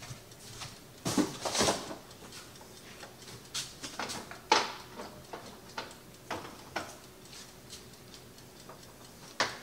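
Light knocks and clatters of containers being shifted about as a jar of cold-brew coffee is put into a refrigerator, a few scattered bumps spread over several seconds.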